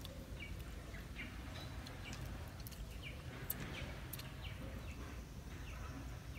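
Small birds chirping now and then in short, falling calls over a low steady outdoor background, with a few faint clicks.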